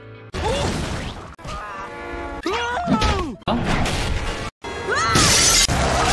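Short excerpts of cartoon soundtracks spliced back to back, each lasting about a second and cut off abruptly. They hold music along with crash and hit sound effects.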